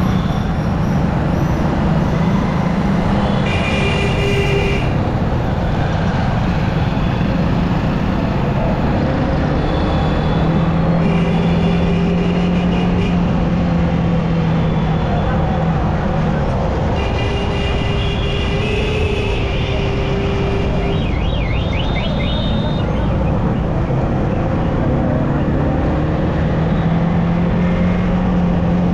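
Yamaha R15M's single-cylinder engine running under steady wind and road noise while riding through city traffic, its pitch rising near the end. Other vehicles' horns sound several times: a few seconds in, around the middle, and again later.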